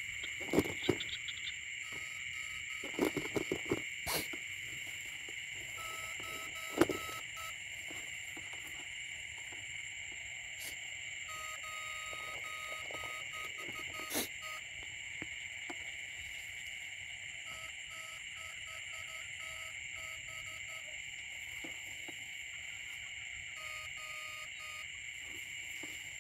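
Night chorus of small frogs and insects calling after rain: a steady high-pitched shrill, with a lower pulsing call that starts and stops several times. A few knocks and rustles of footsteps and handling in the grass come in the first few seconds and once about halfway.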